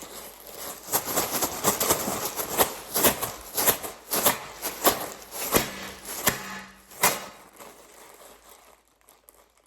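A bag being handled and crinkled: a dense run of sharp crackles and rustles that dies away after about seven seconds.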